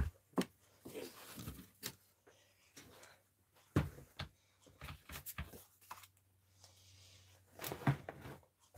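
Scattered light taps, knocks and soft paper rustling as a sheet of white cardstock is taken out and laid down on the desk by hand.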